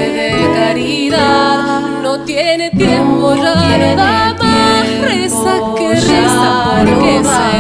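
Female vocal trio singing an Argentine folk song together, accompanied by two acoustic guitars.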